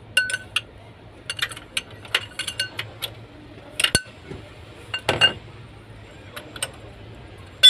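Steel hand tools (wrench and long bar) clinking and clicking against the timing end of an Opel Corsa D 1.2 XER engine during a timing-chain job, in irregular sharp metallic clicks. A duller knock comes about five seconds in and a loud click right at the end.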